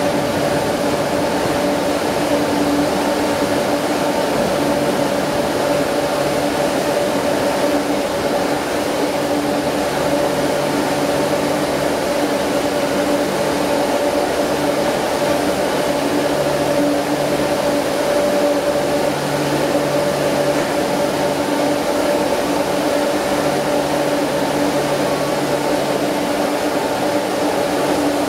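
Passenger train coaches rolling slowly past along a station platform, with a steady mechanical hum that holds a couple of even tones and no clear wheel clacks.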